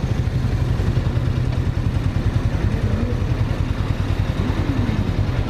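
Motorcycle engine running steadily at low revs, heard from the rider's seat as the bike rolls slowly at walking pace.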